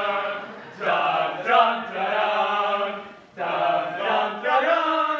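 Voices chanting in long held notes, in three phrases with short breaks about a second in and just past three seconds.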